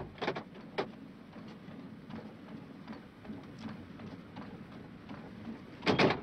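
Knocks and clunks from a just-stopped old open utility vehicle as its occupants get out: a few sharp clicks about the first second, then quiet, and a louder metallic clatter near the end.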